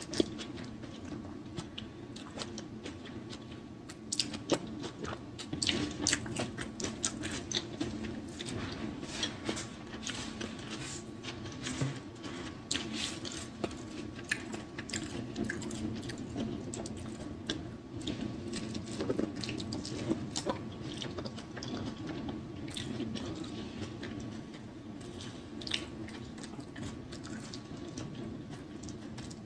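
Close-miked chewing and wet mouth smacking of a person eating, with irregular sharp clicks from lips and teeth, over a faint steady hum.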